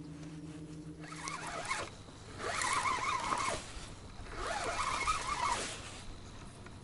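Spinning reel cranked in three short bursts of about a second each, with brief pauses between, the stop-and-go rhythm of a jig retrieve.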